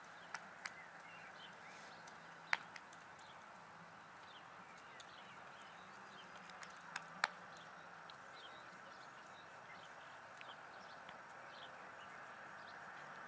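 Faint outdoor ambience: a steady low hiss with scattered chirps of small birds and a few sharp clicks, the loudest about two and a half and seven seconds in.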